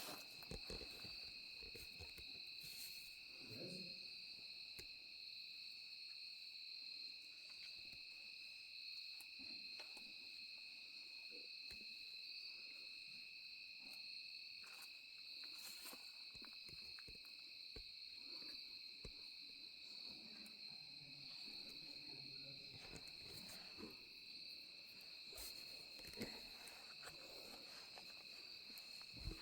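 Steady insect chorus in the forest, faint, holding two unchanging high-pitched tones throughout, with occasional soft ticks and rustles.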